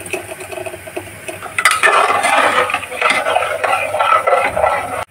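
Steel spoon stirring wet chickpeas in a metal cooking pot, scraping and clinking against its sides, getting louder and busier after about a second and a half.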